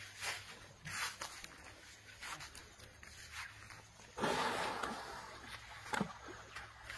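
Rustling and brushing in tall grass in a series of short strokes, with a longer, louder rustle about four seconds in.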